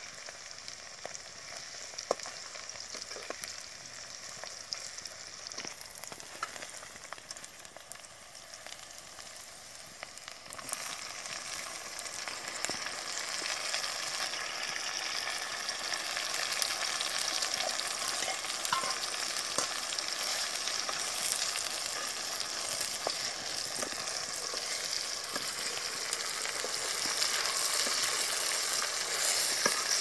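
Oil sizzling and frying in an aluminium kadai, stirred with a metal slotted ladle that gives scattered clicks against the pan. The frying grows louder about ten seconds in, with chopped tomato and onion frying in the oil.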